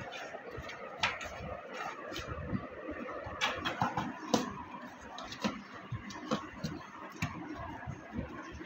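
Cats pawing and scratching at a cardboard box: irregular taps, knocks and scrapes on the cardboard, the sharpest about four and a half seconds in.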